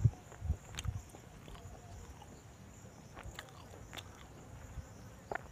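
A person chewing a mouthful of fish curry close to a clip-on microphone: soft mouth clicks, with a couple of low thumps near the start.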